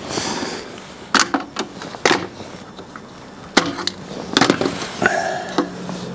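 Scattered sharp knocks and clatter of timber being handled on a workbench, a handful of separate hits with a cluster of quick ones about four and a half seconds in.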